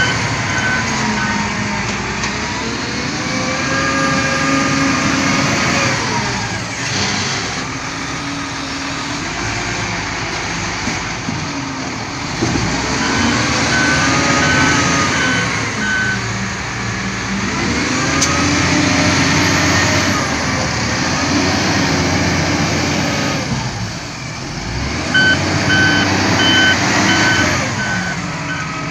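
Diesel engine of an XCMG wheel loader working a sand pile, its engine note rising and falling again and again as it drives and lifts its bucket. Its reversing alarm beeps about twice a second in three spells of a few seconds: at the start, about halfway through, and near the end.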